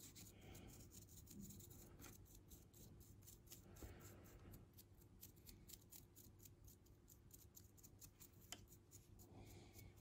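Faint, quick scratching of a nearly dry paintbrush being worked over and over across the raised details of a small plastic model ship, several strokes a second: dry-brushing a highlight.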